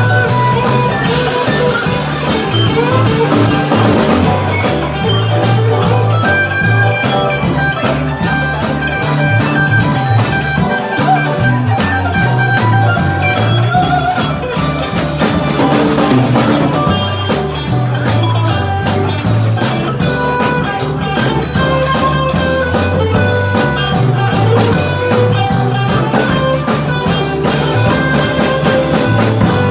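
Live band playing a blues-rock style number on electric guitar, bass and drum kit, with a steady bass line and regular drum beats.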